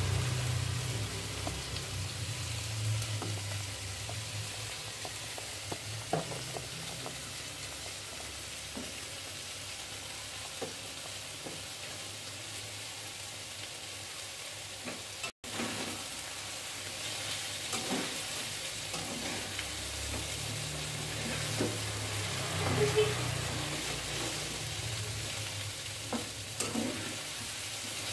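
Food frying in oil in a wok with a steady sizzle, and a metal spatula clicking and scraping against the wok now and then as it is stirred.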